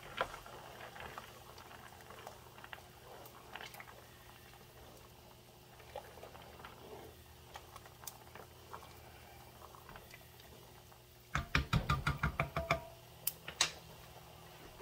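Pot of water at a rolling boil with pasta being stirred in it, the utensil now and then clicking against the pot. About eleven seconds in, a quick run of loud sharp clicks lasting about a second and a half.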